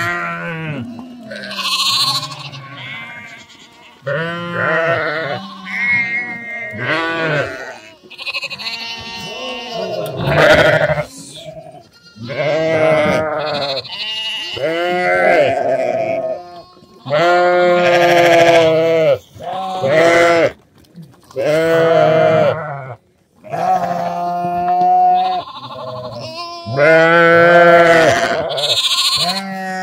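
A flock of sheep and goats bleating, many quavering calls overlapping one after another with hardly a pause.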